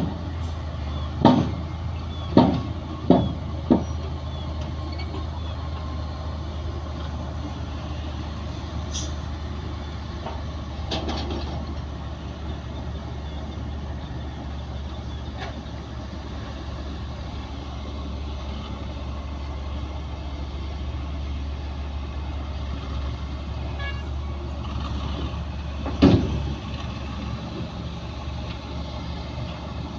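Bulldozer's diesel engine running steadily under work, with a quick series of sharp clanks in the first few seconds and another loud clank about 26 seconds in.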